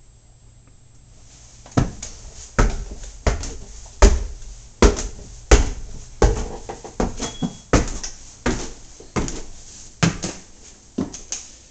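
Footsteps on wooden stair treads and floorboards, a regular series of loud knocks about every 0.7 s, starting about two seconds in.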